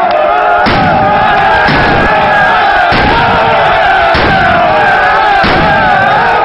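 Football supporters chanting together in unison, with five loud thuds at a steady pace, about one every second and a quarter.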